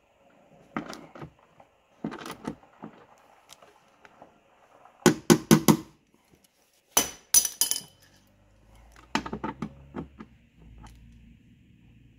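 Metal clinks and knocks of a wrench working a car door striker bolt during adjustment: light taps at first, a quick run of four sharp clinks about five seconds in, and a louder cluster about seven seconds in, with more taps a couple of seconds later.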